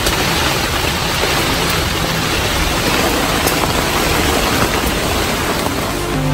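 Heavy rain falling on a tent and the forest floor around it: a steady, loud hiss of downpour.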